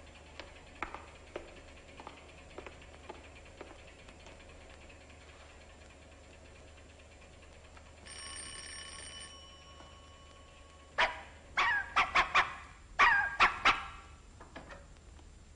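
Faint footsteps, then a doorbell rings once for about a second. A few seconds later a dog barks in quick bursts for several seconds.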